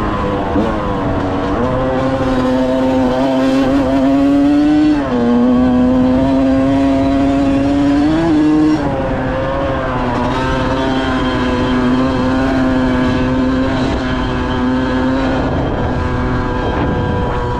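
Dirt bike engine running at steady high revs. Its pitch dips sharply about five seconds in and again about nine seconds in, then holds steady again.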